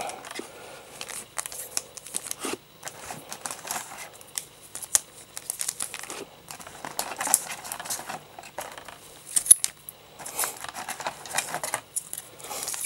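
Foil wrapper of a pre-cut Pokémon card booster pack crinkling in irregular crackles as hands work it open and pull the cards out.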